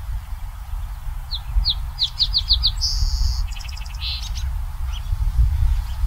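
A song sparrow sings one song starting about a second in: a run of clear notes that come faster and faster, then a buzz and a rapid trill. A steady low rumble runs underneath.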